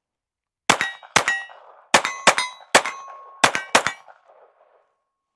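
A Taurus TX22 .22 LR semi-automatic pistol fires seven shots at an irregular pace over about three seconds, firing Remington Thunderbolt lead round-nose rounds. Several shots are followed closely by a second crack, and a metallic ringing hangs on after them.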